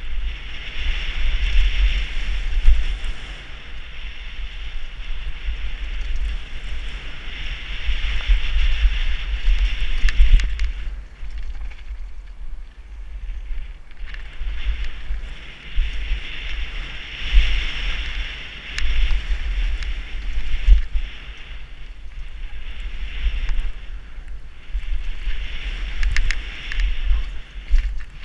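Wind buffeting a helmet-mounted camera on a downhill mountain-bike run, with a low rumble and the hiss of tyres on dirt and gravel that swells and fades several times as the speed changes. Occasional sharp clatters come from the bike over bumps and stones.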